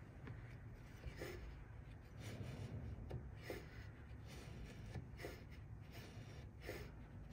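Faint scratching of a mortise gauge's sharp steel pins scoring lines along a piece of timber, in a series of short strokes.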